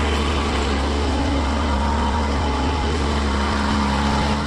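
Motorboat engine running steadily under way: an even low drone with a steady hiss over it.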